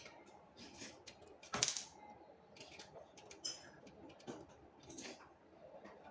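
Scattered metallic clicks and taps of a screwdriver driving a mounting screw into the metal PC case to fasten the power supply, with one louder knock about a second and a half in.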